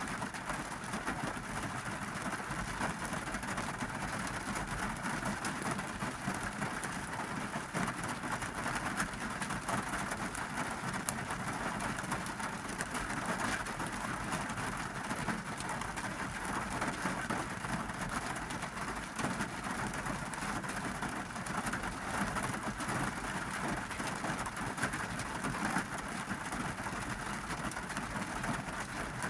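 Heavy monsoon rain falling steadily on a car's roof and windows, heard from inside the car as a dense, even patter.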